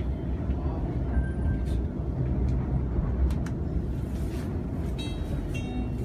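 Waratah double-deck electric train running, heard from inside the carriage: a steady low rumble of the wheels and running gear. Two short high-pitched tones sound near the end.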